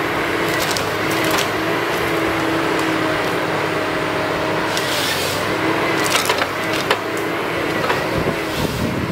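John Deere tracked forestry harvester running steadily, its engine and hydraulics giving a hum with a tone that steps up and down as the boom and head work. Several sharp cracks of wood and branches break in, most of them in the second half.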